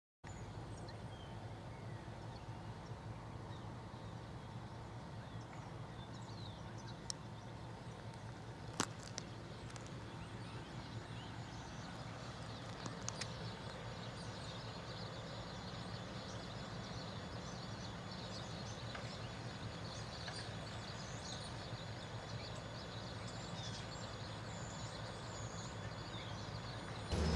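A steady low engine hum, with small birds chirping over it and a sharp click about nine seconds in.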